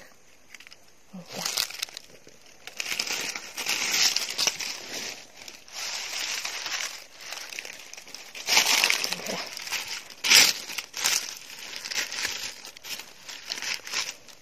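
Dry fallen leaves crackling and rustling as hands and a knife work through the leaf litter, in irregular bursts with one sharper crunch about ten seconds in.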